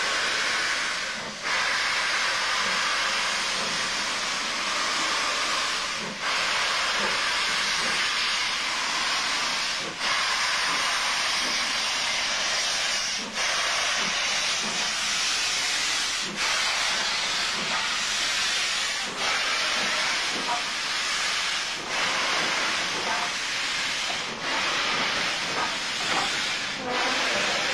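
Steam locomotive venting steam: a loud, steady hiss with brief breaks every few seconds.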